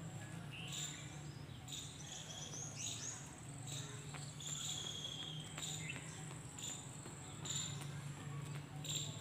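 Birds chirping and insects calling, with short high calls repeating about once a second over a steady low hum.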